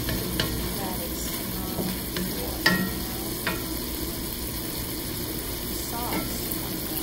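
Stir-fry of conch meat and mushrooms sizzling in a stainless steel pan as it is turned with a wooden spatula, with a few sharp knocks of the spatula on the pan, the loudest about two and a half seconds in.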